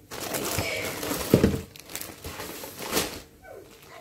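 Plastic packaging crinkling and rustling as a plastic-bagged garment and air-cushion packing are handled and lifted out of a cardboard box. There are louder rustles a little over a second in and again around three seconds.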